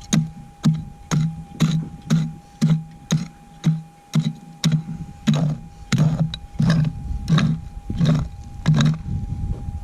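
Minelab GPX 6000 metal detector signalling on a buried gold nugget as the coil is swept back and forth over it: a pulsing response about twice a second over a steady threshold hum.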